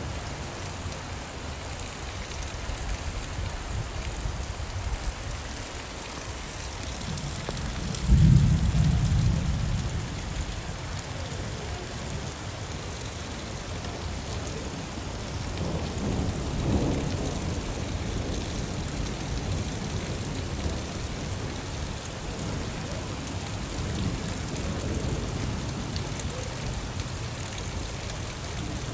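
Steady rain falling, with rolls of thunder: a loud low rumble breaks in about eight seconds in and fades over a couple of seconds, and a fainter one comes around the middle.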